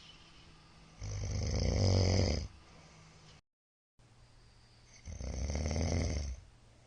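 A middle-aged man snoring loudly in his sleep: two long snores about four seconds apart, each with a low, fluttering rumble.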